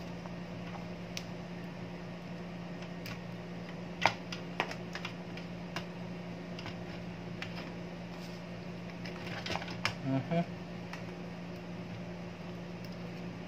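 Scattered clicks and taps of a DVR circuit board and its SATA cable connector being handled against the sheet-metal chassis, the loudest about four seconds in and a quick cluster near ten seconds. A steady low hum runs underneath.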